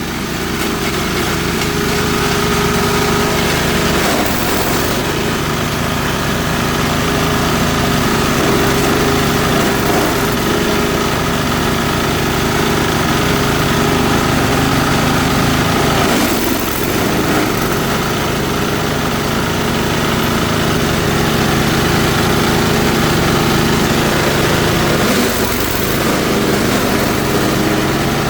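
Engine-driven chopper machine running steadily as it shreds elephant grass, with brief louder noisy surges about three times as material goes through the blades.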